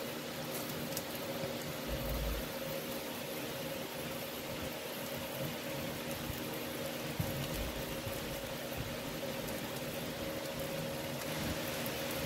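Salmon steaks sizzling skin-side down on a grill grate over open flame: a steady sizzle with a few faint crackles, the fish oils in the skin cooking off.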